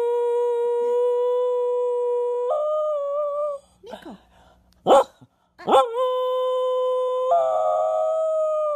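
Dog howling in two long, drawn-out howls with a short pause between them about four seconds in. Each howl holds one steady pitch, then steps up to a slightly higher note before it fades or runs on.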